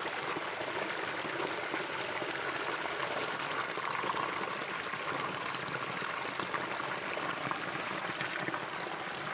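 Small stream pouring over a low rock step and splashing around hands groping in the water, a steady rush of running water.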